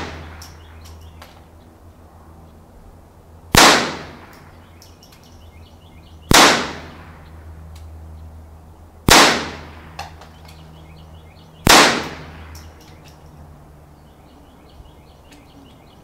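Four .22 LR rifle shots from a Marlin Papoose semi-automatic rifle firing standard-velocity 40-grain target loads, spaced about three seconds apart, each a sharp crack with a short echo trailing off.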